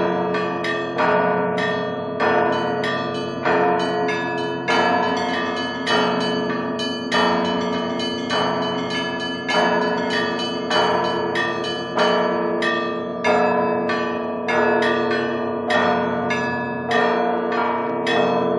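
A peal of church bells: a quick, unbroken run of strikes on bells of different pitches, their tones ringing on and overlapping.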